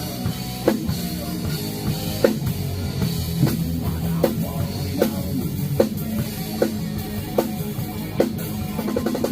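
Rock band playing together in rehearsal: a drum kit keeps a steady beat, with a sharp hit roughly every 0.8 s, over sustained low notes from the other instruments.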